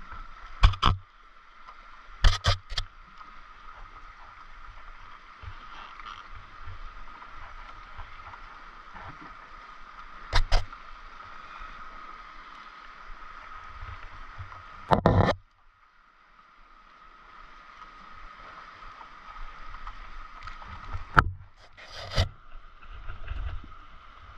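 Hands handling a fishing rod, spinning reel and tackle while rigging: half a dozen sharp knocks and clicks spread out, one a longer scrape of about half a second, over a faint steady hiss.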